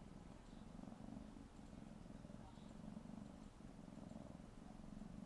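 Tabby kitten purring softly and steadily while it kneads against an adult cat, the purr rising and falling with each breath.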